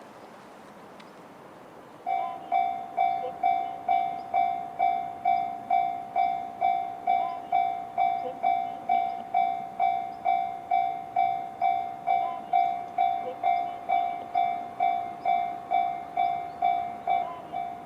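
Japanese railway level-crossing alarm sounding in the JR standard tone, which starts about two seconds in: an electronic bell-like ding repeating evenly about twice a second, the warning that a train is approaching.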